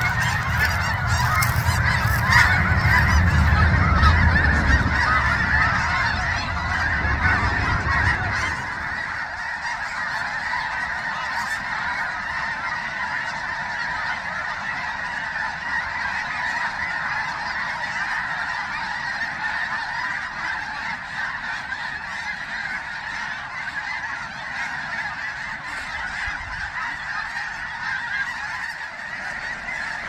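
A huge flock of snow geese calling in flight overhead, a dense continuous clamour of many birds at once. A low rumble underlies it for the first eight seconds or so, then drops away.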